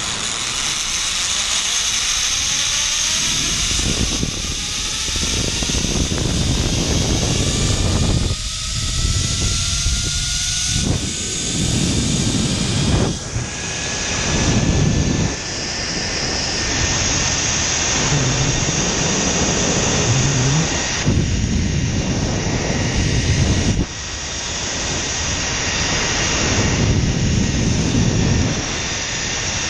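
Zip-line trolley pulleys running along a steel cable with a whine that rises in pitch over the first fifteen seconds or so as the rider picks up speed, then holds steady. Steady wind rush and buffeting on the microphone sit underneath.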